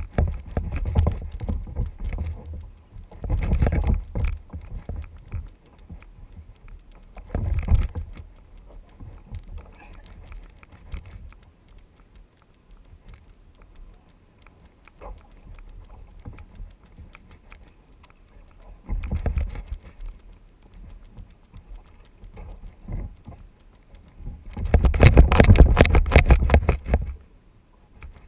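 Kayak being paddled over harbour water: irregular bursts of paddle and water noise against the hull, the loudest lasting about two seconds near the end, with quieter water noise between.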